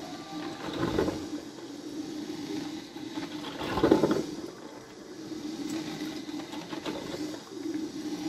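DeLonghi drip filter coffee maker brewing: water gurgling and hissing as the heater pushes it up to the filter basket. There are louder gurgling surges about a second in and a stronger one just before four seconds in.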